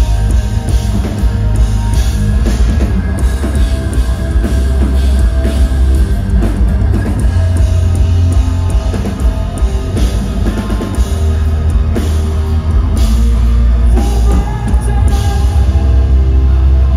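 A live rock band playing loud: electric guitar, bass guitar and a drum kit, heard from the crowd.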